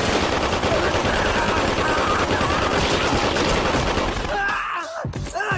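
Sustained automatic fire from two submachine guns, a continuous rapid rattle of shots that breaks off about four seconds in, with a man yelling over the end of it.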